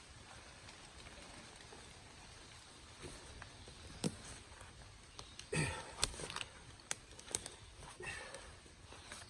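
Quiet outdoor background broken by a handful of short, sharp knocks and scuffs in the second half, about six in all.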